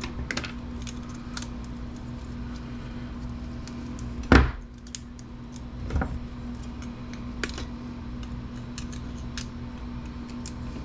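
Small metal and plastic computer parts being handled and set down on a workbench: scattered light clicks and clinks, with a loud clunk about four seconds in and a softer one at about six seconds, over a steady low hum.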